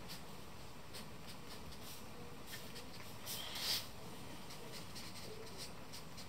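Charcoal stick scratching on drawing paper in short, irregular strokes, with one louder, longer stroke a little past halfway.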